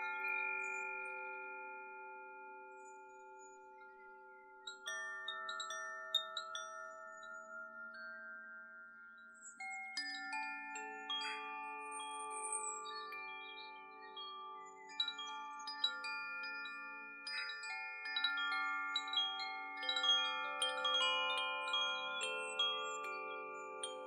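Koshi wind chimes ringing: clusters of tuned, bell-like notes are struck every few seconds, growing busier in the second half, each note ringing on long after it sounds. Short high chirps flicker above the chimes.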